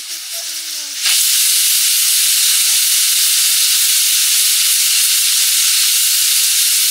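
Pressure cooker's weight valve venting steam: a loud, steady hiss that starts suddenly about a second in. The cooker has come up to pressure.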